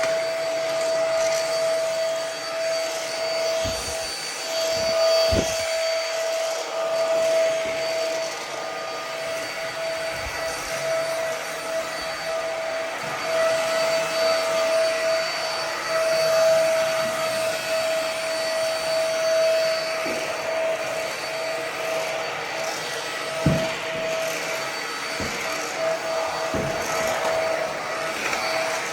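Ozito PXC 18V cordless stick vacuum running steadily on its full-power boost setting: a motor whine with a strong steady tone over the hiss of rushing air. A few soft knocks come through, around a fifth of the way in and again late on.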